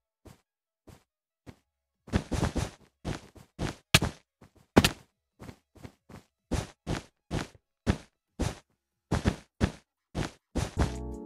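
A series of sharp knocks and thwacks, a few scattered ones at first, then quicker and louder from about two seconds in, with irregular spacing.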